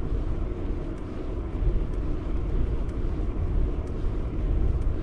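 Wind buffeting the microphone of a camera on a moving bicycle: a steady low rumble with a light hiss over it.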